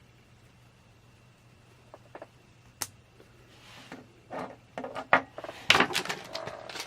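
A single sharp click about three seconds in, then a couple of seconds of plastic blind-bag wrapper crinkling and small clicks as the bag and K'nex pieces are handled and searched through.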